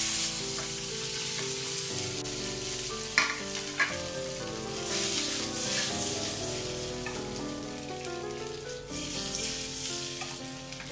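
Ghee tempering of mustard seeds, urad dal, red chillies and curry leaves sizzling in a wok as steamed rice dumplings are dropped in and tossed through it. Two sharp clicks a little after three seconds in.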